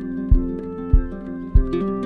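Background music: a plucked-string melody over a steady low beat, a little under two beats a second.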